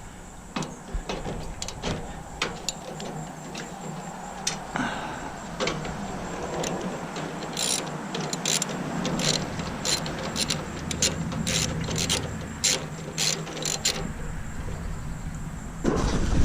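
Hand ratchet clicking while a 5/8-inch bolt on a Bunn-O-Matic coffee maker is worked loose. The clicks come in short runs and grow more frequent from about halfway through.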